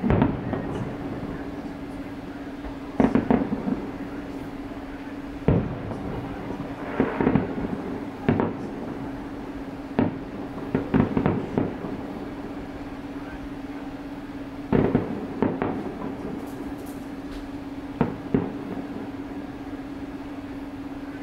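Distant aerial firework shells bursting, about a dozen sharp bangs at irregular gaps of one to four seconds, each trailing off in an echo. A steady low hum runs underneath.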